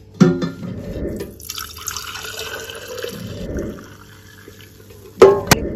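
Home-made mafai fruit wine poured in a splashing stream into a glass jar, easing off after about three and a half seconds. A sharp click comes just after the start, and two loud sharp knocks come near the end.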